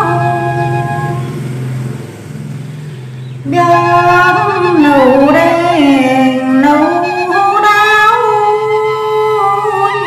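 A woman singing a Tày phong sư folk song solo, long held notes that slide and waver in pitch. One phrase trails off about a second in, and a new, louder phrase begins about three and a half seconds in.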